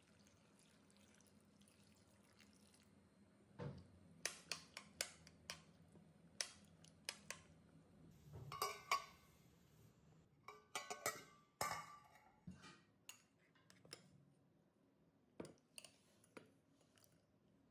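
A metal spoon clinking and scraping against a glass bowl while dates soaking in water are stirred and mashed. It comes in clusters of sharp clinks starting a few seconds in, with a few sparser clinks against a steel bowl near the end.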